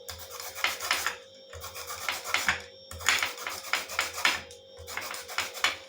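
A lemon rubbed against a hand grater to zest it: runs of quick rasping strokes with brief pauses between them.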